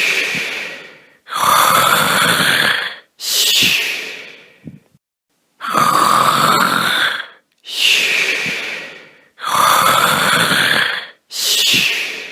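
Snoring: a noisy in-breath rising in pitch followed by an out-breath falling in pitch, repeated alike three times at an even pace with short silent gaps.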